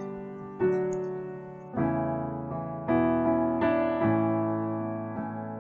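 Slow instrumental keyboard music: sustained chords struck about once a second and left to ring and fade.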